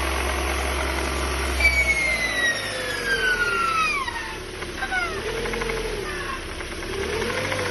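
Whine from a Lada Granta's Jatco JF414E automatic transmission as the car coasts with the throttle released. It comes as a high whistle that falls steadily in pitch for a couple of seconds, then as several shorter falling whistles. The owner suspects the differential.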